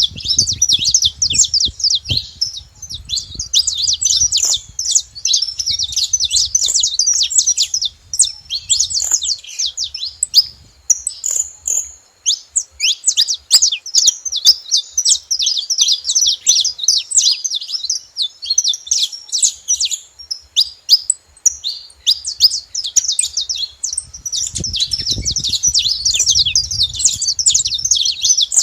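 Saffron finch song and chatter: a dense, nearly continuous stream of rapid high chirps, with a brief lull about twelve seconds in. A low rumble is heard near the start and again a few seconds before the end.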